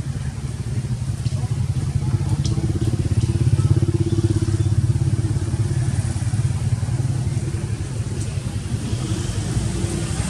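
A small engine, like a motorbike's, running steadily, its hum growing louder for a couple of seconds in the middle, with a few faint clicks.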